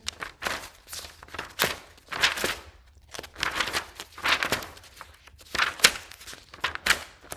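Sheets of paper handouts being handled and shuffled: a string of irregular rustling and crinkling swishes.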